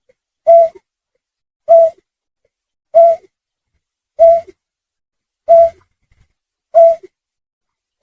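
Looped bird-lure recording of a snipe call: a short hooting note repeated evenly about every one and a quarter seconds, six times, each followed by a faint lower note.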